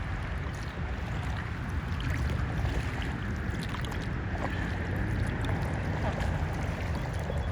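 A steady wash of water and a low wind rumble around a kayak on the water, with a few faint, short, high chirps.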